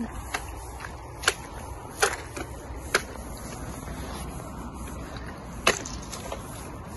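Landing net on a pole being struck down onto thin pond ice, giving sharp cracking knocks as the ice breaks, three about a second apart and another near the end.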